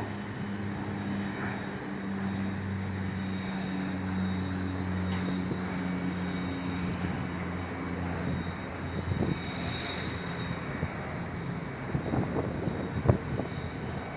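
Jet airliner engines running: a steady low drone with a faint high whine, fading after about nine seconds. A few short crackles come near the end.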